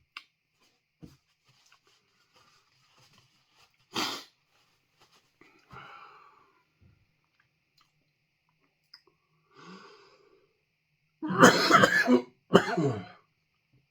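A man coughing: one short cough about four seconds in, then two harder coughs near the end. The cough comes from chili-pepper dust off a freeze-dried 7-Pot Primo ice cream bar catching in his throat.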